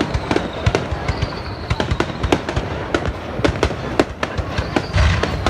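New Year fireworks going off, a rapid uneven string of sharp bangs and crackles, several a second, with a louder, deeper boom near the end.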